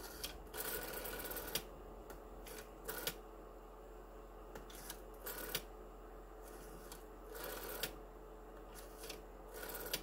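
A rotary telephone dial being turned by a finger and let go, digit after digit, each release followed by the dial's clicking spin back to rest.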